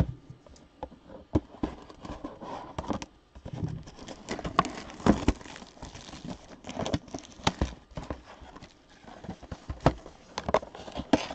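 Scissors cutting the plastic shrink-wrap on a cardboard Panini Illusions trading-card box, then the wrap crinkling as it is torn off, with irregular clicks and taps of the box being handled.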